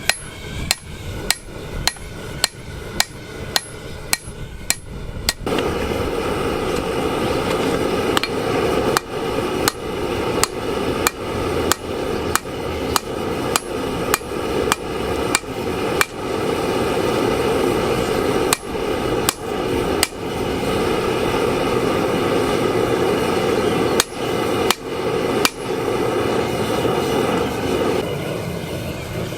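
Hammer blows on hot 5160 steel over an anvil, struck evenly at about two a second, as the bush knife blade is hand-forged. About five seconds in, a steady rushing noise joins the blows and runs until near the end, while the strikes come in shorter runs.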